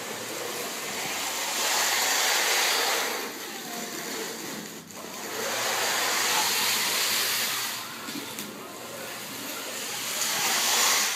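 A loud rushing noise that swells and fades about three times.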